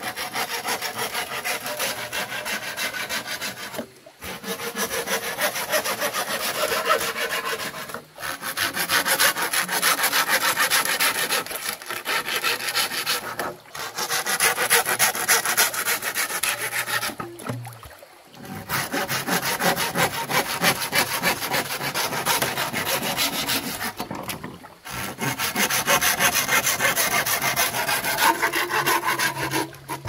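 Hand saw cutting through wood in fast, even strokes, in several bouts separated by short pauses.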